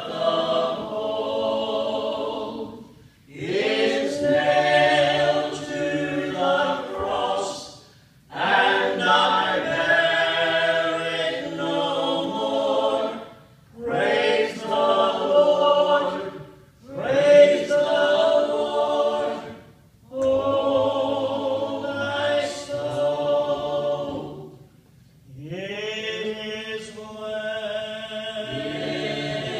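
A small mixed group of men's and a woman's voices singing together in harmony, in sung phrases a few seconds long with short breaks between them.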